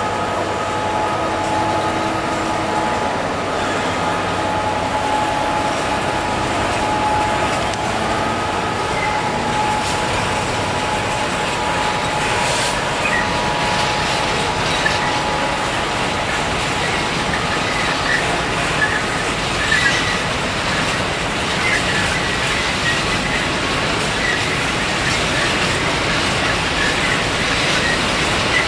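Freight train of hopper wagons rolling past behind a Class 66 diesel locomotive: a steady rumble with wheels clicking over rail joints. The locomotive's two-stroke V12 diesel engine note fades over the first ten seconds or so, and short high wheel squeals come and go in the second half.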